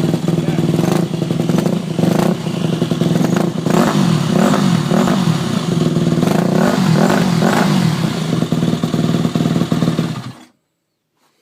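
Yamaha YZ250F four-stroke motorcycle engine running, its revs rising and falling again and again with throttle blips. It shuts off abruptly about ten seconds in.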